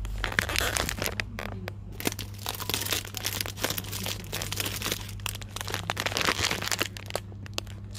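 Plastic snack packets crinkling and rustling as they are handled close to the microphone, with many sharp crackles, over a steady low hum.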